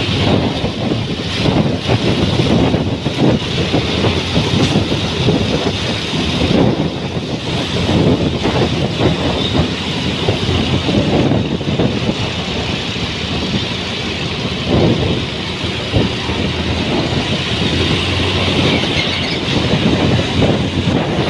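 Wind buffeting the microphone over the rumble of road and engine noise from a moving motorcycle in traffic, a continuous rushing noise that swells and dips.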